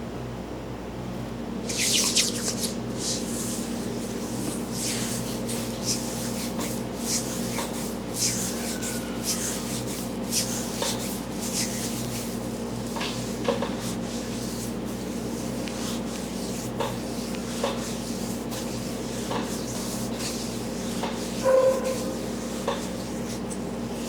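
Hands rubbing over skin and hair during a massage: irregular soft scratchy strokes, some every half second to a second, starting about two seconds in, over a steady low hum. Near the end comes one brief louder stroke with a short squeak.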